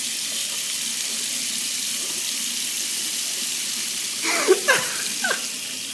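A sink tap running steadily, an even hiss of water. Near the end a few short voice sounds break in over it.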